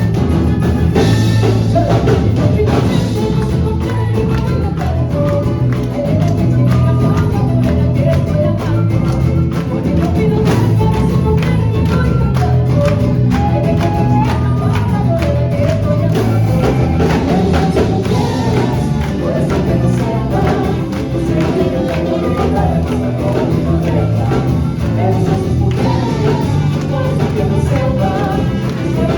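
Music with singing over steady, dense percussion.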